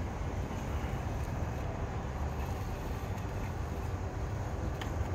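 Steady low rumble with an even hiss of outdoor noise, and one faint click near the end.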